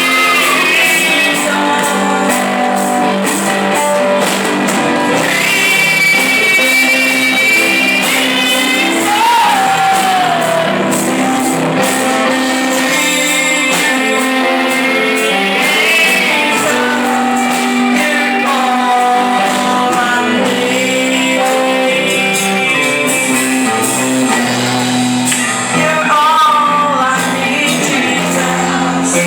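Live music: a woman singing with band accompaniment, a guitar among the instruments, holding long notes that bend and slide in pitch.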